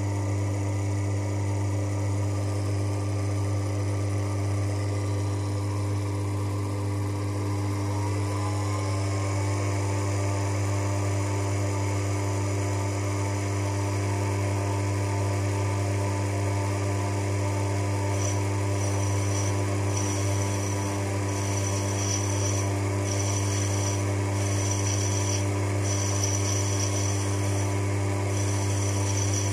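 Sherline lathe's DC motor, driven by a KB Electronics speed controller, running steadily with a strong deep hum while a tool bit turns a brass bar. About eight seconds in, a set of tones rises in pitch and settles higher. From about two-thirds of the way through, a high thin whine comes and goes in short stretches.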